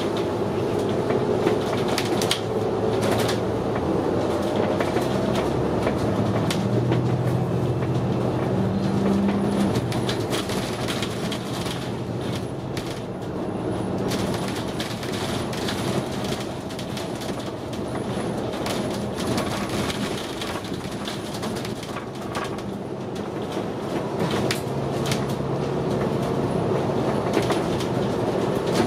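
Interior of a city transit bus under way: the engine runs with a steady low drone while the cabin rattles and clicks over the road surface. The engine note swells for a few seconds at a time.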